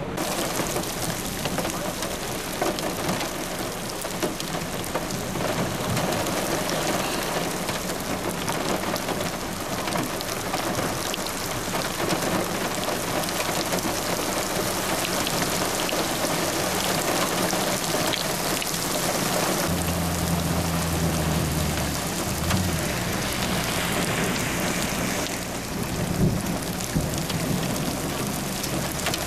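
Heavy rain pouring down and pelting the ground and flood water in a steady, dense hiss. A low steady hum joins in about two-thirds of the way through.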